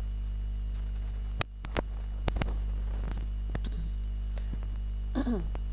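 Steady low electrical mains hum with hiss in the recording, broken by a few sharp clicks about one and a half to two and a half seconds in.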